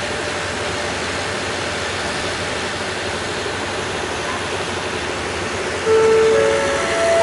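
Steady rolling noise of a passenger express's coaches as the train pulls slowly out of the station. Near the end a louder rising four-note chime sounds over it, the station's signal before a departure announcement.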